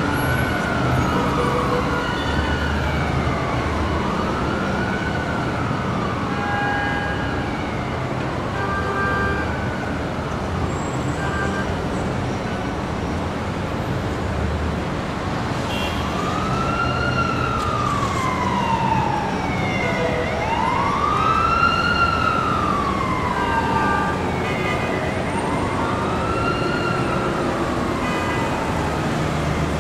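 Emergency vehicle siren wailing in slow rising-and-falling sweeps over steady city traffic noise. It fades partway through and comes back louder in the second half.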